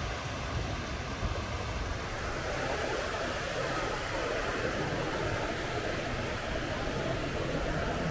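Steady rumble and rushing noise of a moving vehicle, with no distinct events.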